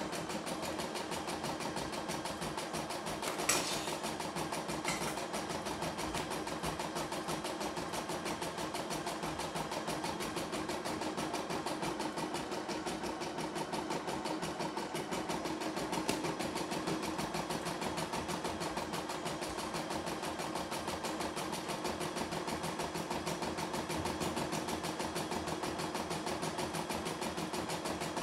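CNY E960 computerized embroidery machine running, its needle stitching at a fast, even rate, with two sharp clicks a few seconds in.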